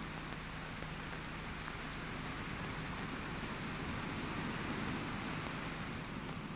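Steady hiss with a faint low hum and a few faint ticks: the background noise of an old film soundtrack.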